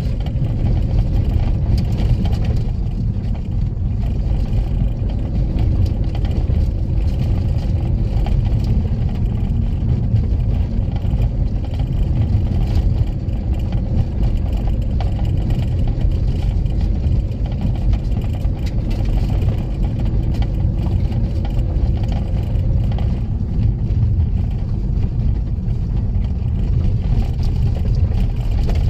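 Car engine and tyre rumble heard from inside the cabin while driving steadily along a narrow rough road, a constant low drone with no breaks.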